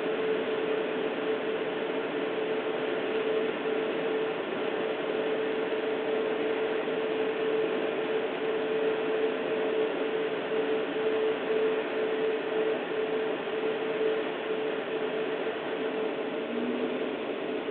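Automatic gantry car wash machine running over the car, heard from inside the cabin: a steady mechanical whir with a constant hum.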